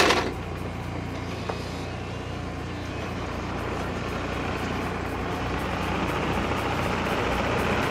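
Compact tracked excavator's diesel engine running steadily, growing slightly louder through the second half, with the tail of a brief loud noise dying away at the very start.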